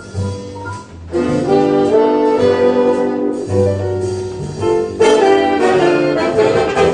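Jazz with saxophone and brass played back over Leonardo planar magnetic loudspeakers driven by a single-ended 6C33C tube amplifier of 14 watts per channel. The band comes in fuller about a second in.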